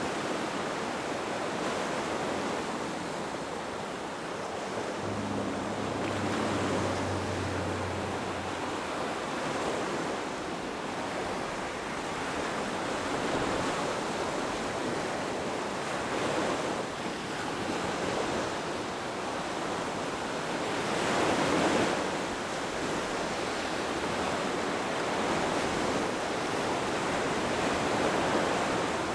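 Ocean surf washing in with wind buffeting the microphone; the waves swell and fall back, one breaking louder about two-thirds of the way through.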